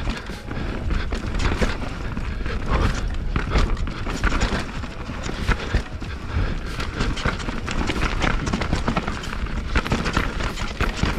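YT Jeffsy enduro mountain bike clattering down a rough trail, with a constant run of small knocks and rattles from the bike. Wind rumbles low on the action camera's microphone.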